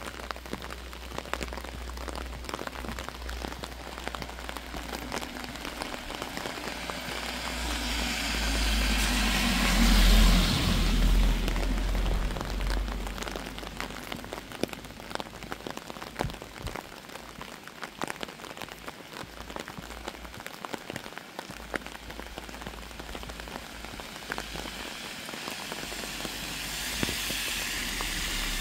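Steady rain falling, with many single drops ticking close by. The rushing grows louder for a few seconds around the middle and swells again near the end.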